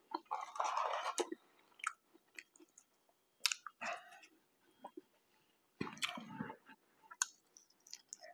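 Close-up chewing of a fast-food meal, with wet mouth clicks, lip smacks and fingers being licked. Two longer, louder stretches of soft noise come near the start and about six seconds in.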